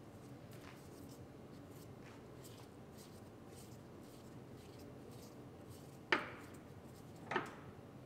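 Faint rubbing and ticking as an inner tie rod is spun out of the steering rack by hand, then two sharp metal clinks about six and seven seconds in.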